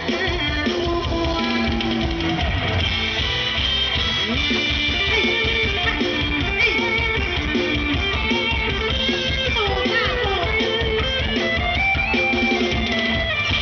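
Live mor lam band playing an instrumental passage: plucked guitar melody lines over a steady drum-kit beat, without singing.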